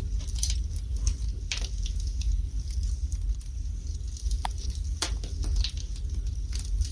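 Wood fire burning in a fireplace, crackling with irregular sharp pops and snaps over a steady low rumble, and one brief whistle about halfway through.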